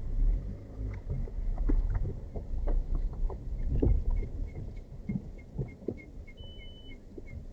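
A vehicle moving slowly over a rough road: a low rumble with irregular knocks and jolts, and a faint ticking at about three a second. A short beep sounds about six and a half seconds in.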